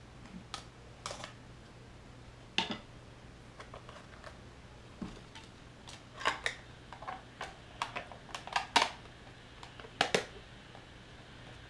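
Hands handling a new iPod touch: irregular clicks, taps and light rustles, with a few sharper clacks.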